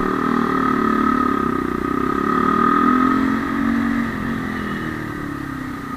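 Motorcycle engine running at low road speed in traffic, picking up a little and then easing off about four seconds in.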